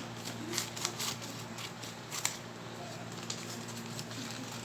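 Scattered light clicks and rustles of small plastic items and packaging being handled.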